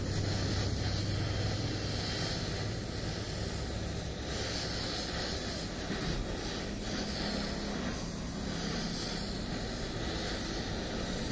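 Gas welding torch flame burning with a steady hiss.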